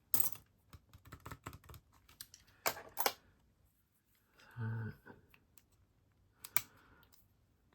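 Scattered light clicks and taps of a tool working into a cheap padlock's internals as it is taken apart, with a few sharper clicks. There is a brief murmur from the person just past the middle.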